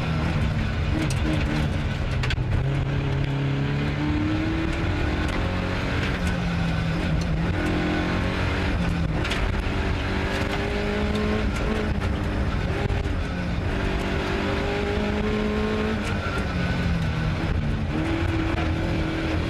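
Ford Escort Mk2's 2.0-litre Pinto four-cylinder engine heard from inside the cabin, driven hard: it repeatedly rises in pitch and drops back as it is revved and shifted through the gears.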